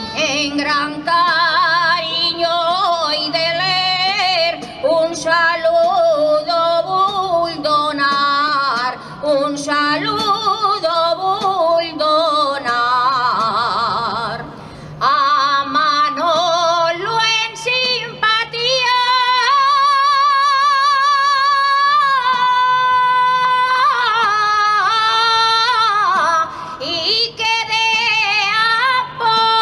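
Live Valencian folk music: a singer with a strong vibrato sings long, ornamented lines over a plucked-string band of guitars and lutes. About two-thirds of the way through, the voice holds one long note.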